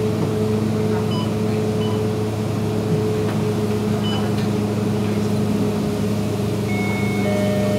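Vehicle engine running with a steady low hum, heard from inside the vehicle.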